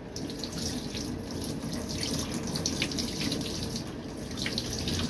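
Running water splashing over hair and into a basin as bleach is rinsed out, poured over the head from a clear plastic cup: a steady rush with many small splashes and drips.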